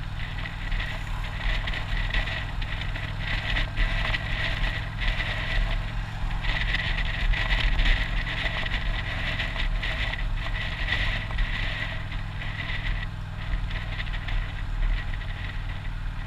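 Motorcycle engine running steadily while riding at town speed, with wind and road noise on the bike-mounted camera.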